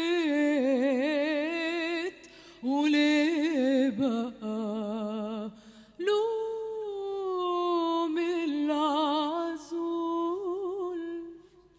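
A woman singing solo and unaccompanied into a microphone: long held notes with wide vibrato and ornamented runs, in several phrases with short breaths between, the last note fading out near the end.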